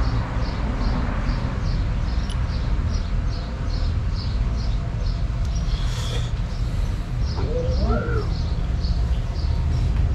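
Steady low rumble with a bird chirping over and over, about three short chirps a second, and a few brief rising-and-falling calls about eight seconds in.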